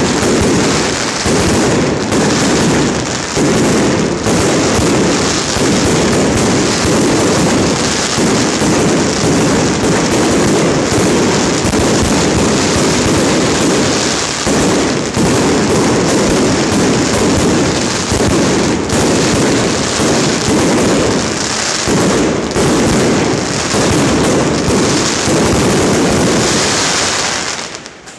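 Aerial fireworks going off in a dense, continuous barrage of bangs and crackle, stopping near the end.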